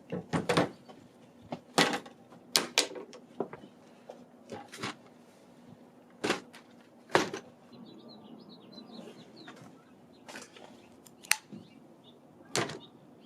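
Tools being taken out and set down, giving irregular knocks and clacks. Faint bird chirps come in about eight to ten seconds in.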